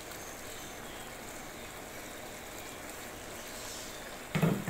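Potato curry simmering in a steel pot, giving a steady sizzling hiss. A brief louder sound comes near the end.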